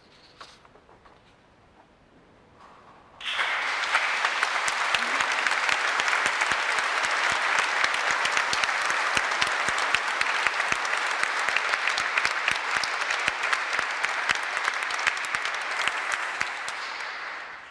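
Congregation applauding. After a near-quiet start the applause breaks out suddenly about three seconds in, holds steady, and dies away near the end.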